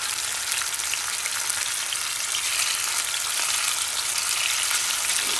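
Raw chicken breast pieces frying in vegetable oil heated to medium-high in a small pan: a steady sizzle flecked with fine crackling.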